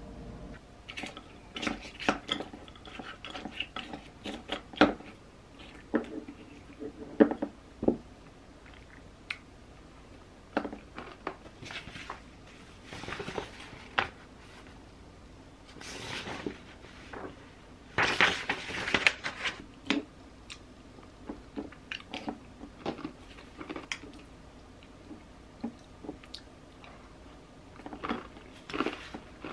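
Close-up eating sounds: a spoon clicking against a glass dessert bowl and chewing of yogurt with granola, in short irregular bursts. Paper is handled and rustled in a few stretches partway through.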